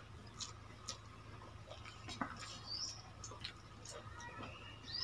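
Faint eating sounds: scattered small wet clicks and smacks of chewing and of fingers scooping watered rice (pakhala) from steel bowls.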